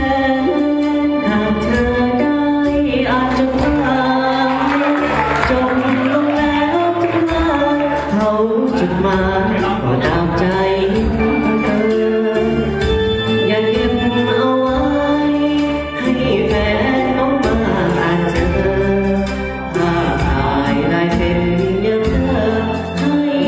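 A man singing into a microphone over a karaoke backing track, both amplified through loudspeakers.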